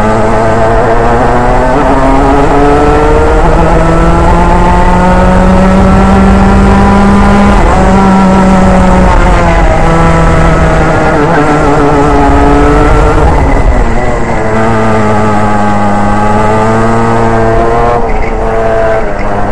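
Racing kart's engine heard up close from the kart itself, revs climbing slowly for several seconds, then falling away about seven seconds in. The revs build and drop twice more, dipping again near the middle and close to the end.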